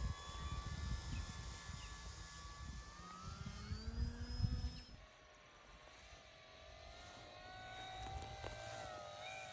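Radio-controlled FMS Super Cub model plane's electric motor and propeller whining in flight, the pitch gliding up and down as it throttles and passes. Low rumbling noise in the first half stops about five seconds in.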